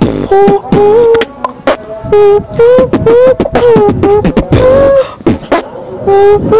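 Vocal beatboxing into a microphone: sharp mouth-made drum hits keep a steady beat under a hummed melody of short held notes that step between two pitches and repeat every second or so.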